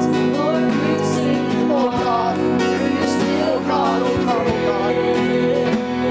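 Live worship song: women's voices singing a slow melody over sustained keyboard chords.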